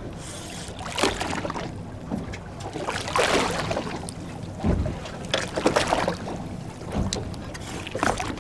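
Water slapping and sloshing against a boat's hull in uneven surges, with wind buffeting the microphone and a few sharp knocks.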